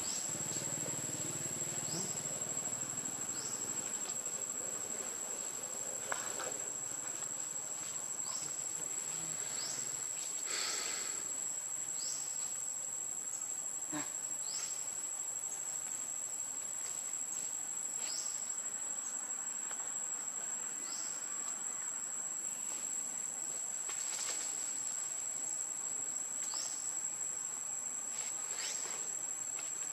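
A steady, high-pitched insect chorus in forest, with short rising chirps every couple of seconds.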